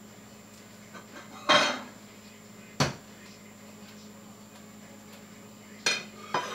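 Dishes and kitchen utensils clinking and knocking: four separate short clinks, the loudest about a second and a half in with a brief ring, over a faint steady hum.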